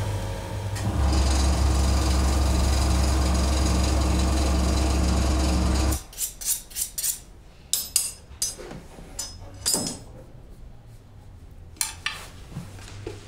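Electric leather skiving machine running with a steady hum and whir as a piece of leather is fed through it, cutting off sharply about six seconds in. Then a series of short scrapes and ticks from a knife cutting leather on a hard cutting plate.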